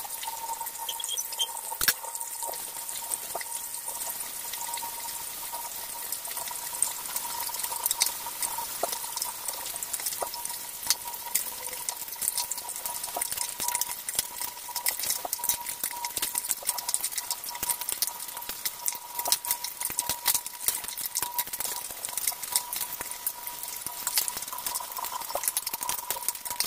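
Fish frying in hot oil in a nonstick pan: a steady sizzle with dense crackling pops that grow busier later on. There is a single sharp knock about two seconds in, and a faint steady high hum underneath.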